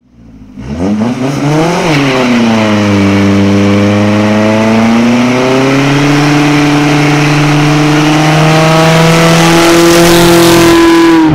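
A loud engine running under load. Its pitch climbs sharply over the first two seconds, drops back, then rises slowly and steadily.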